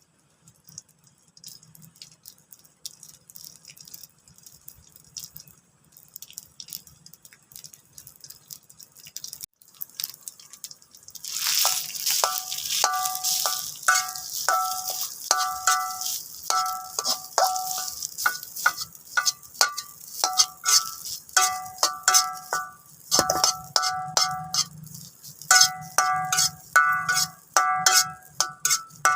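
A metal utensil repeatedly clinking and scraping against a ringing dish, each strike ringing at the same few pitches, starting about eleven seconds in and going on irregularly, over a steady hiss. Before that only faint clicks.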